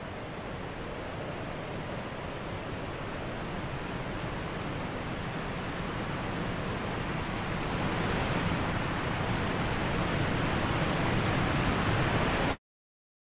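Steady rushing noise, growing gradually louder over about twelve seconds, then cutting off suddenly near the end.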